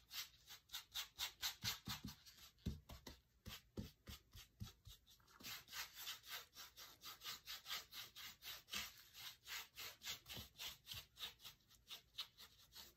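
Paintbrush dry-brushing chalk paint over a textured lamp base: quick, light back-and-forth strokes, about four a second, a faint scratchy bristle rubbing.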